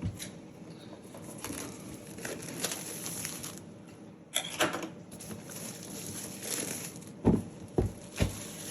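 Cardboard product box being handled and opened: rustling and scraping of packaging, a short rasp about four and a half seconds in, then three dull knocks near the end as the box and its parts are set down.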